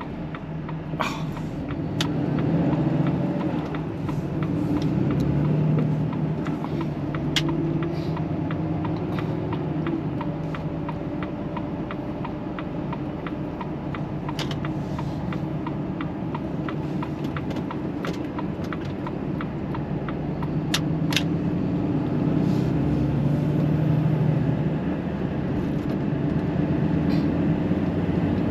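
Volvo FH 540 lorry's engine running on the road, heard from inside the cab: a steady drone whose pitch rises and eases off several times. Faint regular ticking and a few sharp clicks run through it.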